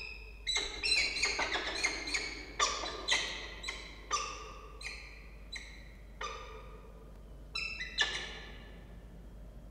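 Peregrine falcons calling during a prey delivery to the nest box: a quick run of sharp, ringing call notes, crowded together for the first few seconds, then thinning to single calls about half a second apart and stopping shortly before the end.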